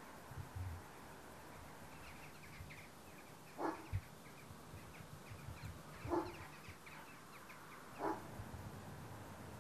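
Flock of birds calling faintly overhead: a stream of quick, high chirps, with three louder calls that drop in pitch, spaced about two seconds apart.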